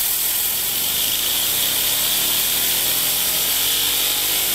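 Compressed air hissing steadily from an air blow gun nozzle onto a homemade Tesla turbine of thin stainless steel discs, with the spinning turbine's whirring hum growing clearer from about a second in as it spins up.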